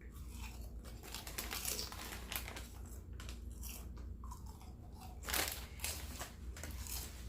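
A person chewing and crunching food close to the microphone, a quick run of crisp crunches, with one louder crunch about five seconds in.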